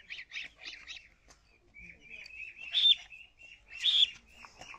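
Young chicks peeping in a quick, continual run of short high chirps, with a few louder peeps near the middle and again near the end.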